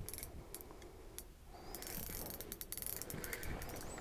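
Spinning reel's drag clicking in quick, irregular ticks as a hooked lake trout pulls line off against it while the handle is cranked. The drag is set a little loose. The clicking gets busier about halfway through.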